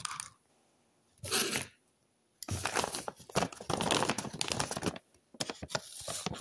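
A white paper bag crinkling and rustling as it is handled and opened. There are two short rustles early, then dense crinkling from about two and a half seconds in, with a brief pause near the end.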